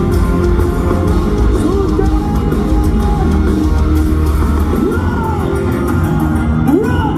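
Heavy metal band playing live through an arena PA: electric guitars, bass and drums in a steady full mix, with a few rising guitar bends near the end.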